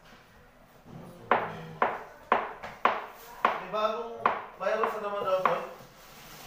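Kitchen knife chopping on a cutting board: five sharp strokes about half a second apart, then a few more strokes under people talking.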